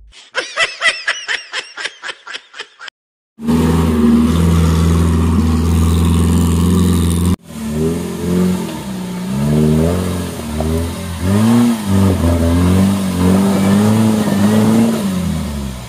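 A Suzuki 4x4 off-roader's engine running steadily, then revving up and down again and again as it climbs out of a steep muddy ditch under load. It is preceded by about a dozen short, sharp sounds in quick succession and a brief silence.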